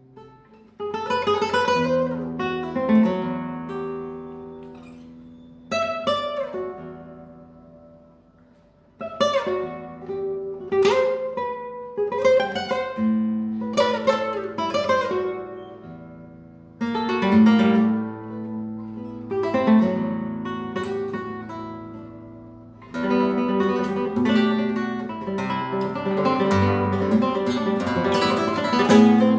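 Nylon-string Spanish guitar by Guitarras Graciliano Perez, built with an internal air chamber, played solo fingerstyle in a sound test. Strummed chords are struck and left to ring down. A denser, busier run of notes fills the last several seconds.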